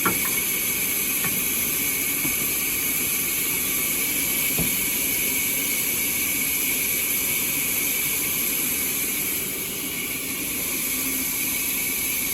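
Sawmill machinery running with a steady whir and hiss, with a few faint knocks; the sound dips slightly for about a second after nine seconds in.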